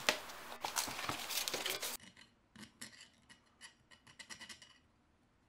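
Brass airsoft inner barrel being sanded by hand: short, repeated dry scratching strokes of metal on abrasive. For the first two seconds there is louder scraping and rustling, then it cuts suddenly to quieter strokes that fade out near the end.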